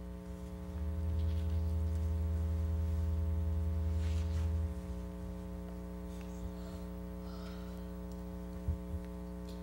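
Steady electrical mains hum with a buzz of evenly spaced overtones. A deeper hum swells louder about a second in and drops back after about four seconds, and a couple of faint low knocks come near the end.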